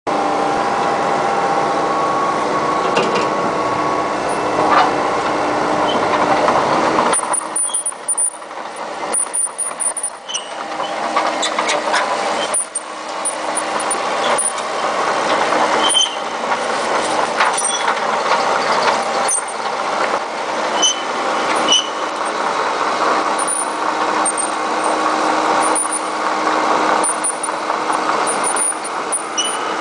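Komatsu PC78MR-6 compact excavator's diesel engine running steadily. About seven seconds in, the low engine note drops away for a few seconds, then returns.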